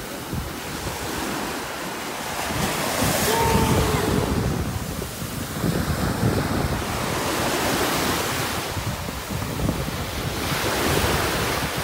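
Small ocean surf breaking and washing up over the sand, its rush swelling and easing with each wave, with wind buffeting the phone's microphone.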